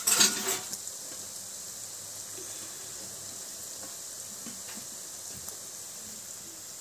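Strips of nimki dough deep-frying in hot oil with a steady, high sizzle. There is a brief loud burst right at the start.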